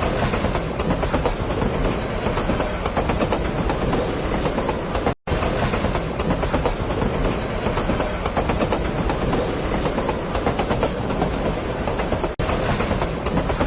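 Train running along the track with a steady rumble and wheels clattering over rail joints. The sound breaks off briefly about five seconds in and again near the end, where clips are spliced together.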